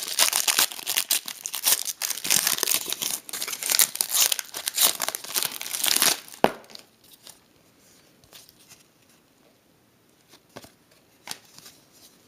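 Crinkly wrapper of a trading-card pack being torn open and crumpled, a dense crackling that stops about six and a half seconds in, followed by a few faint clicks and rustles.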